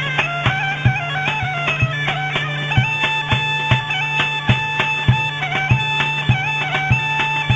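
Bulgarian folk music on a gaida (bagpipe): a steady drone under a quick, ornamented melody, with a large drum beating about twice a second.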